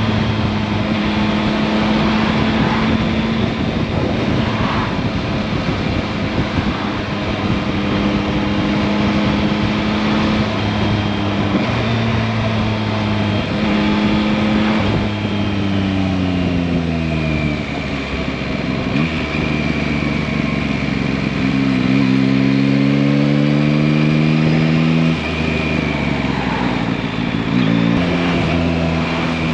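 Yamaha MT-09 (2021) 890 cc inline-three engine on the move, its pitch stepping and rising and falling as the throttle opens and closes and the rider changes gear. Near the end of a long pull it drops suddenly.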